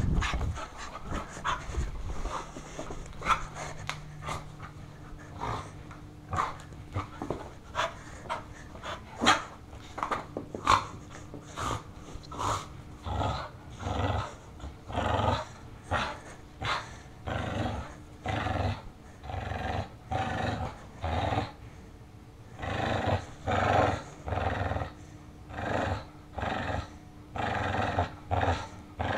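Dog growling in short repeated bursts during play, with panting, the bursts coming about once a second and more regularly in the second half.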